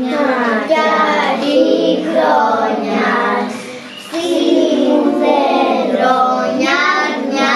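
A group of young children singing a Greek Christmas carol (kalanta) together, in two sung phrases with a short break about four seconds in.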